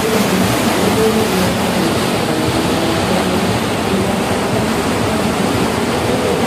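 Steady rushing noise of water washing past a moving cruise boat, with wind on the microphone.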